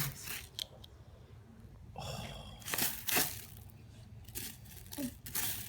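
A few short scrapes and crunches of digging through loose dirt, with quieter stretches between.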